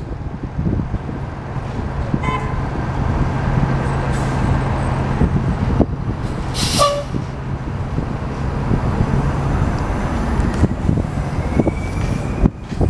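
City buses and traffic running, with short horn toots about two seconds in and again near the middle, the second with a sharp burst of hiss. Near the end a faint rising and falling whine comes from the approaching Orion VII hybrid bus and its BAE Systems HybriDrive electric drive.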